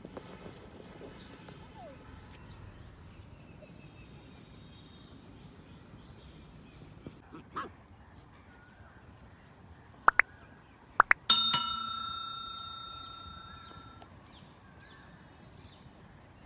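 Four sharp mouse-click sound effects about ten seconds in, then a single bell chime that rings out and fades over about two and a half seconds: the sound effects of a 'like, subscribe, ring the bell' overlay animation. Faint bird chirps sit underneath in the first few seconds.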